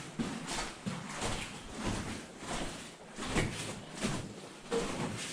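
Footsteps walking on the rocky floor of a mine tunnel, an uneven run of scuffs and knocks about one to two steps a second.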